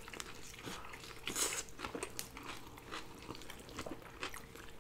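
A person biting into a double cheeseburger and chewing it close to the microphone: scattered small wet clicks and crunches, loudest about a second and a half in.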